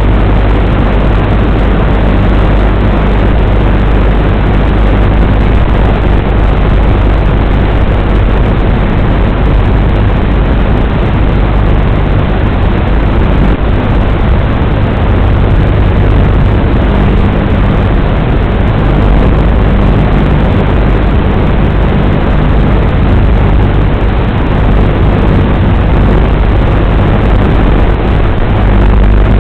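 WLToys 12418 RC car running: a loud, steady rushing noise with a low hum underneath, unchanging throughout.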